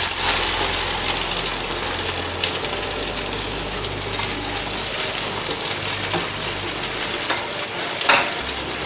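Liquid sauce poured into a hot skillet of browned beef, sizzling, a little louder as it first hits the pan and then steady, with a silicone spatula scraping the last of it from a glass bowl and a wooden spoon stirring it in.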